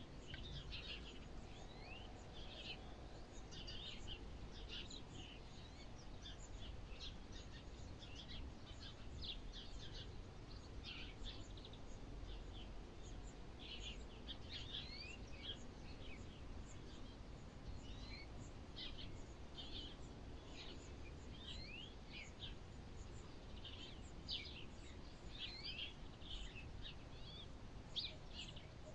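Small birds chirping continually, many short chirps and quick whistled glides overlapping, over a faint low rumble.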